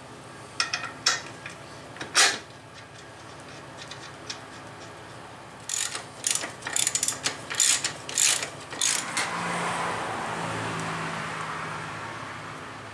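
Socket ratchet clicking as a nut is run down on the front hub, most likely the drive axle-to-hub nut: a few single clicks early, then a quick string of clicks, followed by a few seconds of softer, steady rushing noise.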